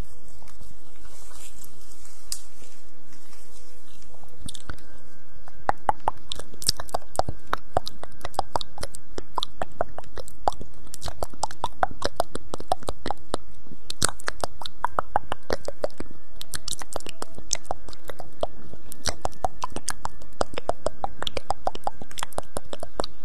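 Close-miked ASMR trigger sounds: a dense run of crisp, crunchy clicks and crackles, several a second, sparse at first and thickening about five seconds in.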